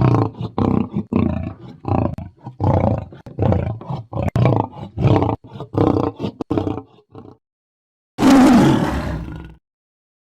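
Tiger vocal sound effects for a cartoon tiger cub: a quick run of short calls, about two a second, for some seven seconds, then after a short pause one longer roar lasting about a second and a half.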